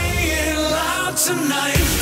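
Pop background music. The bass drops out about halfway through, and the beat comes back in near the end.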